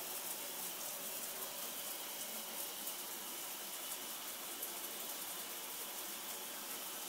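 Hot shower running behind the curtain: a steady, even hiss of water spray.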